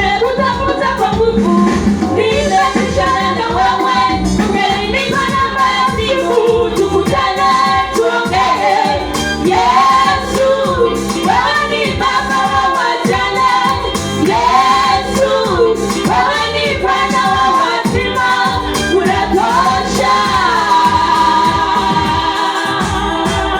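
Children's school choir singing a gospel song, with instrumental accompaniment and a steady beat.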